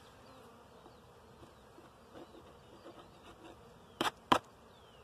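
Honeybees buzzing faintly around open hives, with two sharp wooden knocks close together about four seconds in as a hive frame is worked loose.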